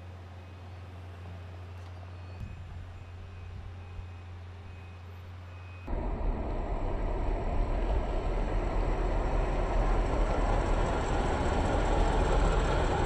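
A steady low hum for the first six seconds, then a Ford Super Duty flatbed tow truck driving up the street, its engine and tyre noise growing louder as it approaches.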